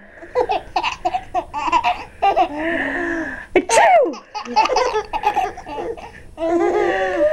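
Twins laughing in bursts at fake sneezes. A drawn-out "ah... ah..." windup ends in a mock sneeze a little past halfway, and another windup starts near the end.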